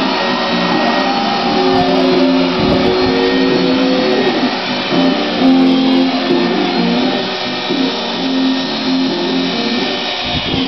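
Guitar music with plucked notes that change every second or so.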